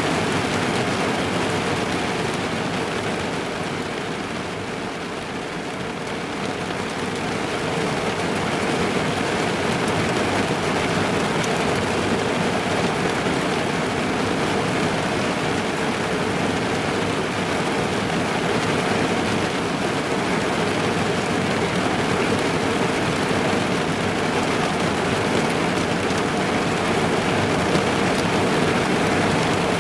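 Steady rain drumming on a car's roof and windows, heard from inside the car as a dense, even hiss. It eases a little a few seconds in, then picks up again.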